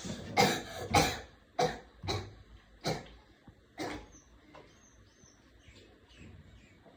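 A person coughing in a fit of about six coughs over the first four seconds, each fainter than the last.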